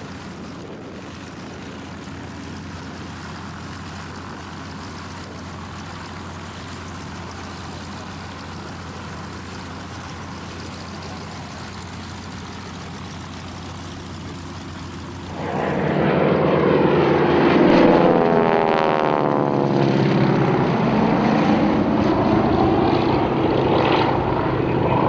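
Radial engines of Spartan 7W Executive aircraft (Pratt & Whitney R-985 Wasp Junior) droning steadily at a distance, then growing much louder about fifteen seconds in as an aircraft passes close by, the pitch sweeping as it goes past.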